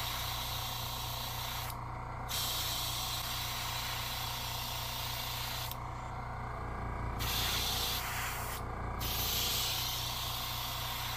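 Gravity-feed airbrush spraying paint in bursts of hiss, stopping briefly about two seconds in, for about a second after six seconds, and again near nine seconds. A steady low hum runs underneath.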